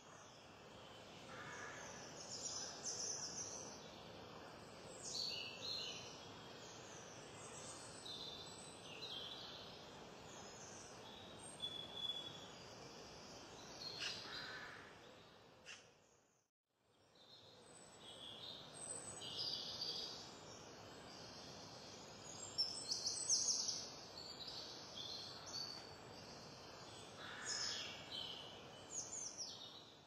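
Small songbirds calling in woodland: scattered short, high chirps and twittering notes over a steady background hiss. The sound cuts out briefly about halfway through.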